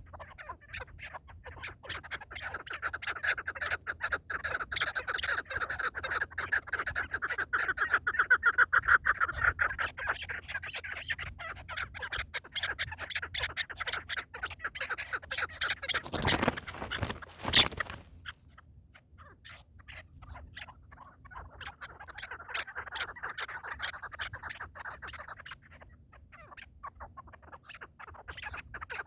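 Partridges calling in a fast, continuous run of repeated clucks. A loud rush of noise cuts across the calling for about two seconds just past the middle, and the calling then resumes more quietly.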